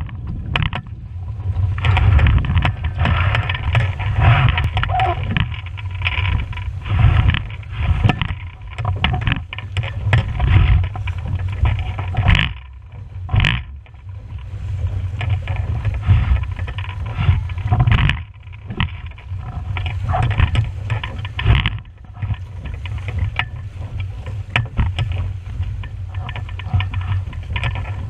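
Wind buffeting the microphone in gusts, over water rushing and splashing along the hull of a small sailing dinghy sailing fast through choppy water.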